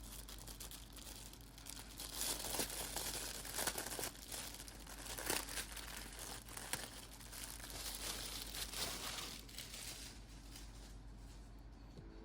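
Packaging being unwrapped and opened by hand: a dense crackle of many short clicks, busiest in the middle and thinning out near the end.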